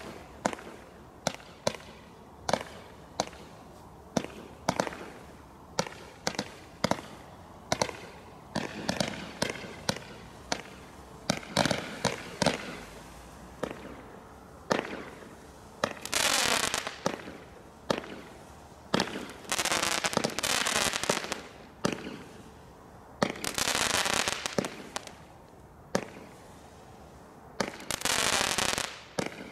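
Consumer fireworks going off: a quick string of sharp bangs and cracks, about one or two a second, then several longer rushing bursts lasting a second or two each.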